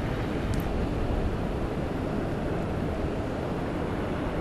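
Steady low rumbling noise of an outdoor field recording, even throughout, with no distinct events.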